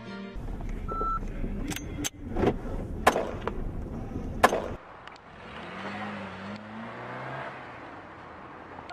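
Car engine running with several sharp pistol shots fired over about three seconds, the last one loudest; then the sound drops to a quieter low hum.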